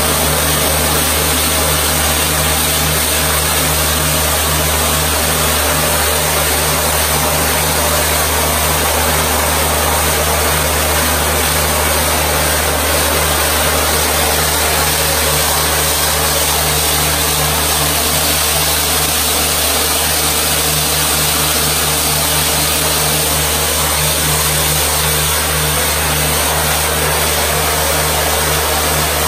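Pressure washer running steadily, a motor hum under the hiss of the water jet spraying a silkscreen to wash out its emulsion stencil.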